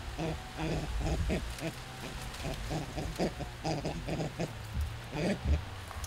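Vervet monkeys chattering: a continuous run of short calls, several a second. It is the agitated chatter of a troop displeased at other monkeys sitting close to its enclosure.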